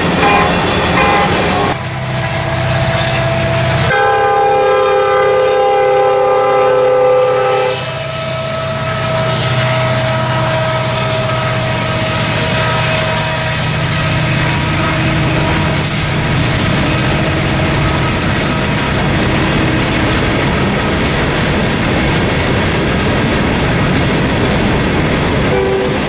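A passing train's diesel locomotive sounds its air horn, a chord of several notes held for about four seconds, with single horn notes just before and after. The rumble and clatter of the train rolling over the rails follow to the end, and the horn chord starts again right at the end.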